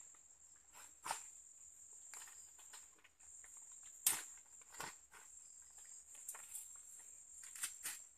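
A steady high insect drone, with scattered crackles and snaps of dry leaves and twigs being handled on the forest floor; the sharpest snap comes about four seconds in.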